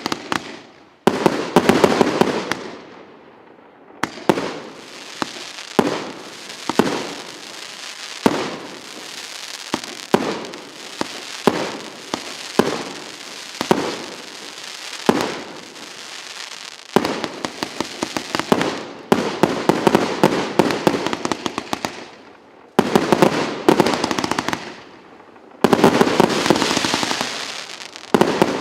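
A 150-shot, 1.2-inch consumer firework cake firing: a run of sharp bangs, about one a second, each followed by a crackling fizz. Several volleys of rapid bangs come in between, the last one near the end.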